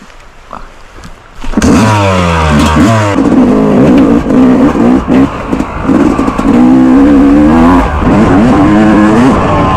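Yamaha YZ250X two-stroke single-cylinder dirt bike engine opening up about a second and a half in. It then revs hard, climbing in pitch and dropping back several times as the throttle is worked and it pulls through the gears.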